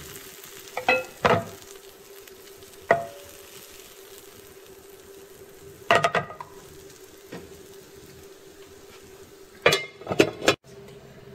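Rice-flour batter sizzling faintly in a hot, oiled nonstick frying pan, with a few sharp knocks of ladle and pan. Near the end, a metal pan lid is set down on the pan with a short burst of clanks.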